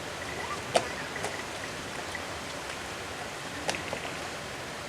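Steady rain falling, an even hiss of rainfall with a couple of sharp drip or tap sounds, about a second in and again near four seconds.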